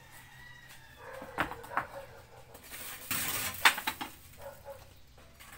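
Hand work on a cement stove top: a few sharp knocks, then a short rasping scrape and a loud knock about three and a half seconds in. Faint animal sounds behind it.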